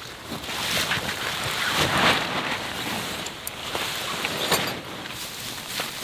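Nylon tent fabric and a backpack rustling and crinkling in irregular swells as a person pushes through the door flap and crawls into a small dome tent.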